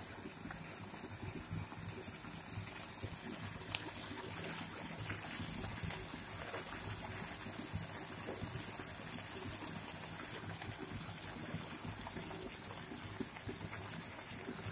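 Tomato curry simmering in a kadai on a gas stove: faint, steady bubbling, with two light clicks about four and six seconds in.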